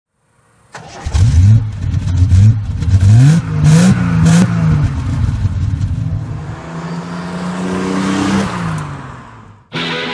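1972 Triumph TR6 PI's fuel-injected 2.5-litre straight-six revving through its twin tailpipes: a run of quick blips of the throttle, then a longer rev that climbs steadily and drops back. Rock music comes in near the end.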